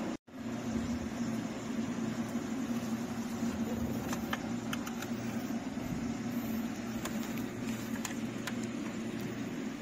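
Pickup truck engine idling with a steady low hum, while plastic wiring-harness connectors give scattered light clicks as they are handled.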